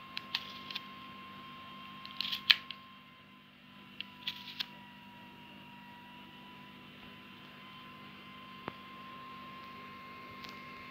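Nokia N95 slider phone being slid open and shut by hand: clusters of sharp clicks from the sliding mechanism, the loudest about two and a half seconds in, then single clicks later on. A steady faint high whine and a low hum run underneath.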